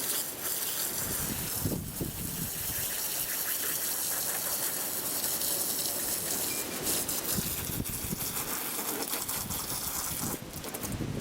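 Water jet spraying onto a soaked car carpet: a steady gushing hiss that dips briefly about two seconds in and eases off near the end.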